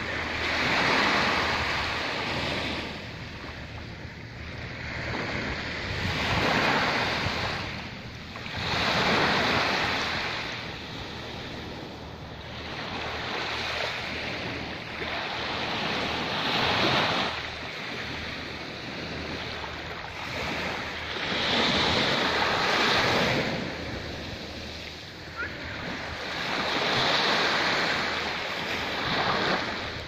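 Small waves washing up onto a sandy beach and drawing back, each surge of surf swelling and fading every few seconds.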